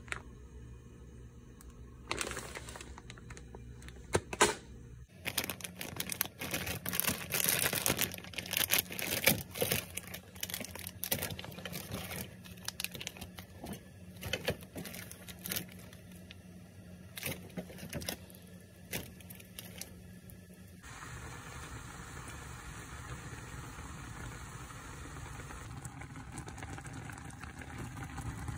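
Crinkling, tearing and clicking of plastic food packaging and tableware being handled at a table, dense for a stretch, then giving way about two-thirds through to a steadier background hum.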